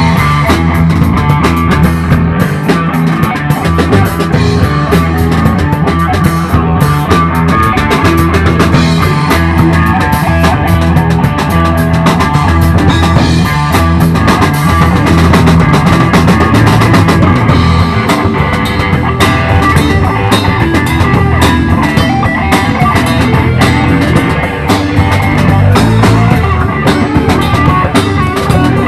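Live rock band playing an instrumental stretch with no singing: electric guitars over a drum kit.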